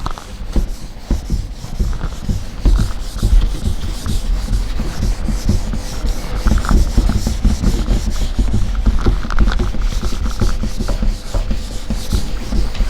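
Eraser rubbing back and forth across a writing board in a quick run of irregular strokes, as the board is wiped clean.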